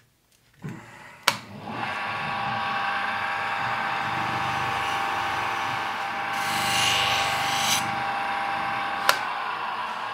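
Small bench grinder fitted with a 180-grit abrasive wheel, switched on with a click and running up to a steady whine as a knife blade is worked on it, with a brief louder hiss in the middle. A click about nine seconds in, and the whine stops.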